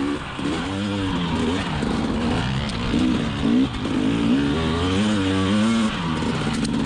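KTM 300 XC TPI two-stroke single-cylinder dirt bike engine under throttle, revs rising and falling again and again as the rider works the throttle.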